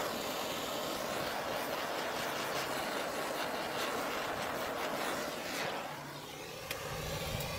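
Handheld gas torch burning with a steady hiss as it heats heat-shrink tubing over soldered wire splices. The flame is taken away about six seconds in.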